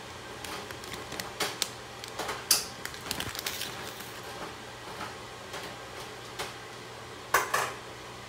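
Metal cookware and utensils clinking and knocking at a stove, in irregular clicks with two louder clatters, one about two and a half seconds in and one near the end.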